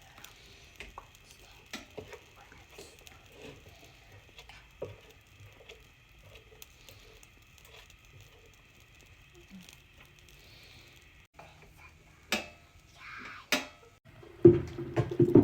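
Faint hiss with scattered small clicks and taps of food being handled, two sharper clicks near the end, and a louder clattering thump in the last second.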